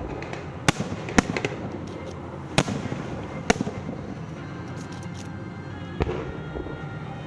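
Aerial fireworks going off: about five sharp bangs spaced irregularly over several seconds, some followed by brief crackling, over a steady background rumble.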